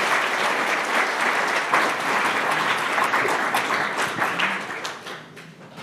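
Audience applauding, a dense patter of many hands clapping that fades out over the last second or so.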